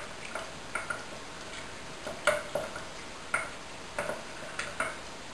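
Wooden spoon stirring in a glass bowl, knocking against the glass about ten times at an uneven pace; each knock rings briefly. The spoon is stirring squares of baking chocolate in hot coffee to melt them.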